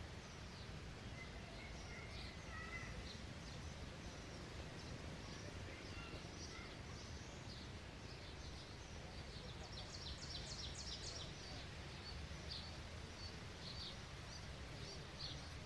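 Small songbirds chirping, short high notes scattered throughout with a quick run of chirps about ten seconds in, over a steady low background rumble.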